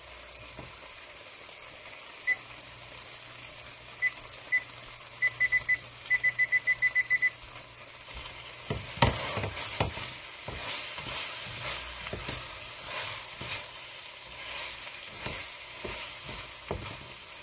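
Tofu frying in a pan, with metal tongs clacking and scraping as the pieces are turned, starting about nine seconds in. Before that, short electronic beeps sound, a few single ones and then a quick run of about eight.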